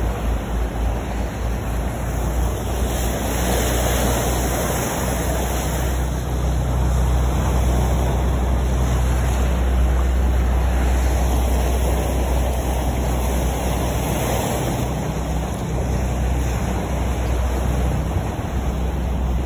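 Wind buffeting the microphone and choppy sea water splashing by the boat's side, over a steady low drone from the boat's engine.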